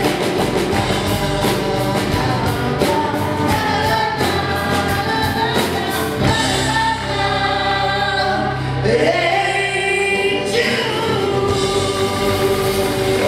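A song performed live: several voices singing together, a male lead with female backing singers, over strummed acoustic guitars. The strumming keeps an even rhythm for about the first half, then gives way to long held notes.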